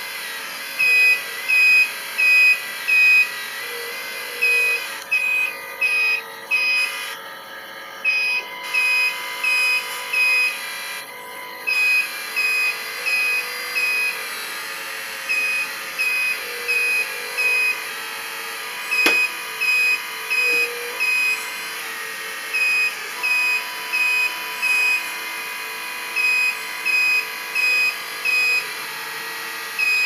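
Reversing-alarm beeps from a radio-controlled construction model's sound unit: a high beep about twice a second, in runs broken by short pauses, over a steady mechanical hum. One sharp click about two-thirds of the way through.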